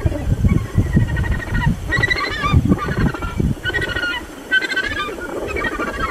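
Australasian gannets calling: several short, harsh, wavering calls over a low rumble of wind on the microphone.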